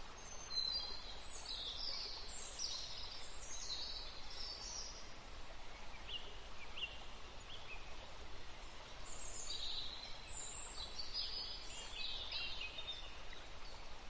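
Small songbirds singing in quick, high-pitched twittering phrases, in two bouts with a few lower chirps between them, over a steady background hiss.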